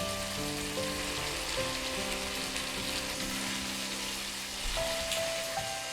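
Sauerkraut, pork belly and glass noodles sizzling steadily in a pan as the cooking water boils off. Soft background music with held notes plays underneath.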